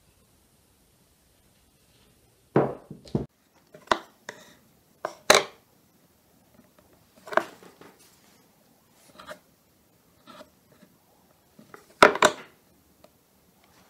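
Irregular clicks and knocks of a kitchen knife and small tools against a wooden board while pink fondant pieces are cut and shaped. About ten separate taps, the loudest a quick cluster near the end.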